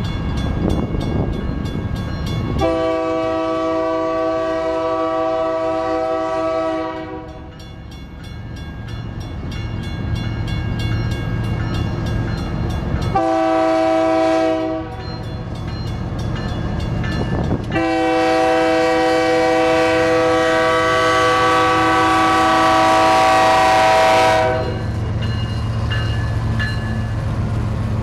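BNSF diesel locomotive's air horn sounding for the grade crossing: a long blast, a short one, then a longer, louder one as the train closes in. Under it the crossing-signal bell rings steadily, and near the end the low rumble of the lead locomotives passing comes in.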